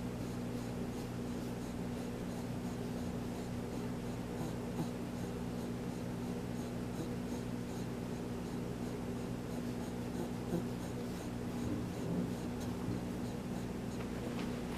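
A pet breathing heavily, over a steady low hum.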